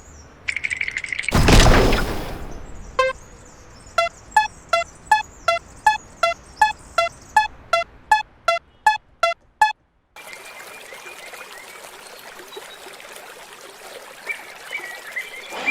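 Cartoon sound effects: a short buzzing tone and a loud noisy burst, then a run of about fifteen short, evenly spaced beeping tones, about two a second. After a brief break comes a steady hiss of pouring, trickling water.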